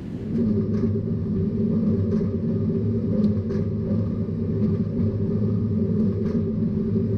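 Tractor and Massey Ferguson 2200 series large square baler running together: a steady low engine drone with faint clicks every second or so.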